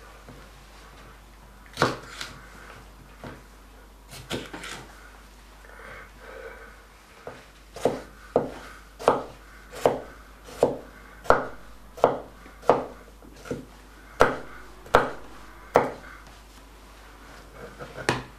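Kitchen knife chopping bell pepper on a wooden cutting board: a few scattered knocks at first, then from about eight seconds in a steady run of knife strikes, roughly three every two seconds.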